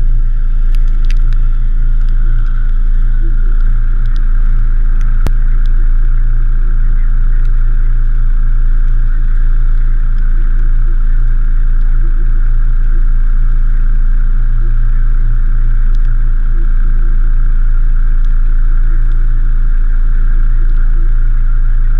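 Off-road 4x4's diesel engine idling steadily and loud.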